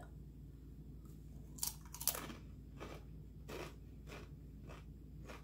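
Takis Blue Heat rolled tortilla chip being bitten and chewed: about six crisp crunches at uneven intervals, the first about a second and a half in, over a faint steady low hum.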